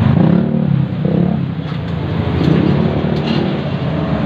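A motor vehicle engine running with a steady low drone.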